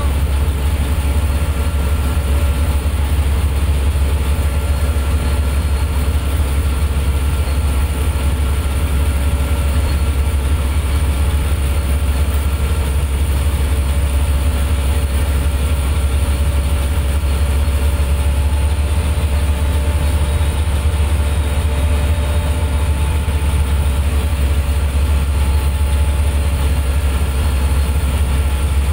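Boat engine idling steadily, a deep low hum with faint steady whines above it.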